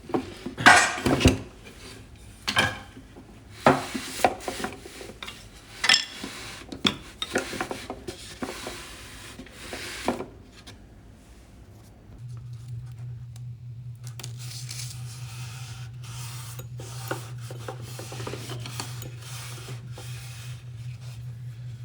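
Wood and metal hand tools being handled on a bench: scattered knocks, clinks and rubbing for the first half. About twelve seconds in, a steady low hum starts and keeps going.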